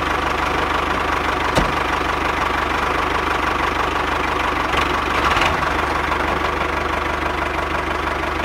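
Homemade miniature model tractor running steadily with an engine-like drone and a rapid low pulse as it drives; one sharp click about a second and a half in.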